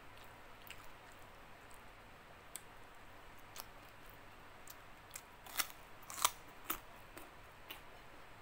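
Scattered sharp crunches and mouth clicks of chewing crisp fried fish, the loudest a little past the middle.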